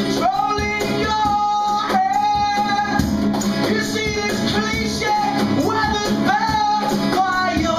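Rock song with sung vocals over electric guitars and drums, a steady full-band mix.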